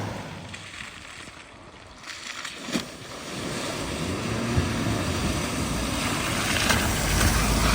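Vehicles driving through deep water at a flooded ford: the rush of water and engine noise fade away, a sharp knock comes near the middle, then the water rush and engine noise build again as another vehicle comes through. Wind buffets the microphone.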